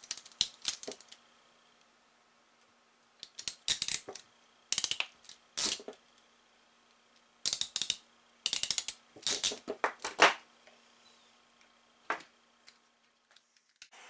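Metal crimping pliers clicking and clacking as they squeeze a splice clip onto a wire junction: short clusters of sharp clicks that come and go, with quiet pauses between.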